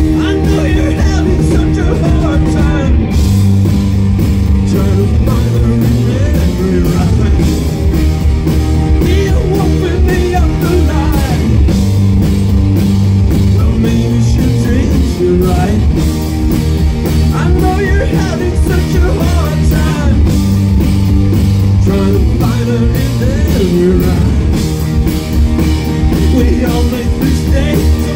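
Rock band playing live, with electric guitars and a drum kit, loud and unbroken.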